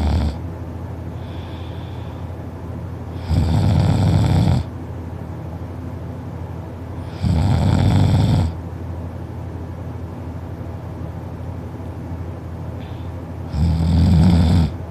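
A sleeping man snoring loud: three snores a few seconds apart, each about a second long, over a steady low hum.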